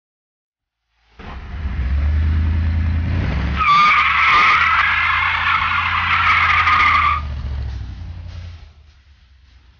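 1966 Dodge A100 pickup's V8 engine running hard, joined about two and a half seconds later by a wavering high squeal of spinning tires in a burnout that lasts about three and a half seconds. The tire squeal cuts off, and the engine sound fades away as the truck drives off.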